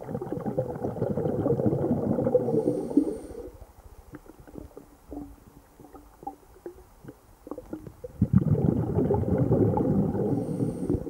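Exhaled air bubbles from a diver rumbling past an underwater microphone, twice, about eight seconds apart, each lasting about three seconds and ending with a short faint hiss; small clicks sound in the quiet between them.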